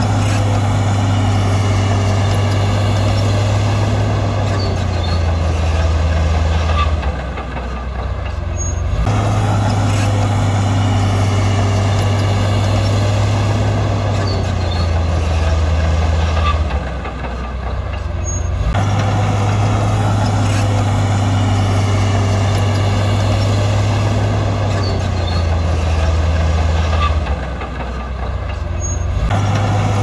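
Heavy earth-moving machinery engine running loud and steady, its low note dropping and the sound easing off briefly about every ten seconds, three times over in an identical repeating cycle.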